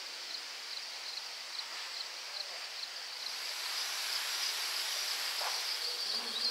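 Insects chirping outdoors in a steady rhythm, a few chirps a second, with a denser, louder high trill joining about halfway through.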